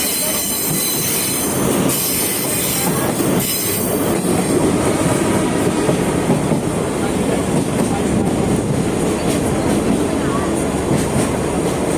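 Sagano Romantic Train heard from aboard a moving carriage: a steady rumble of wheels running on the rails, with a thin, high, steady whine above it.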